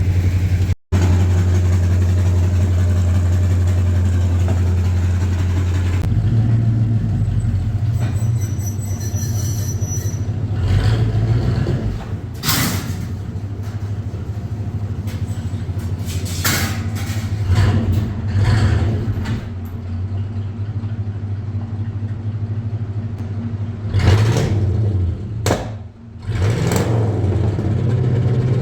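Chevrolet K30 squarebody truck engine running with a steady low hum, broken by a few short, louder bursts of sound later on.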